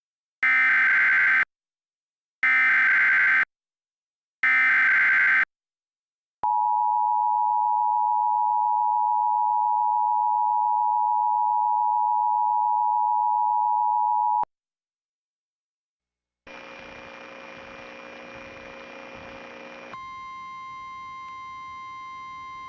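Emergency Alert System tones: three one-second bursts of SAME header data tones, then the EAS two-tone attention signal held for about eight seconds. It cuts off sharply. A couple of seconds later a quieter steady sound with several held tones begins, and it shifts to a different set of tones a few seconds before the end.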